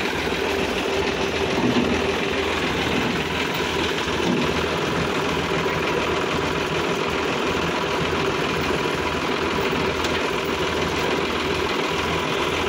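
Sonalika DI 745 III tractor's diesel engine idling steadily.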